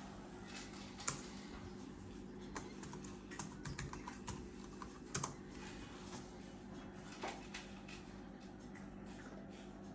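Typing on an Acer Aspire 7741Z laptop's keyboard: irregular key clicks, a quick run of them between about one and five seconds in, then only a few.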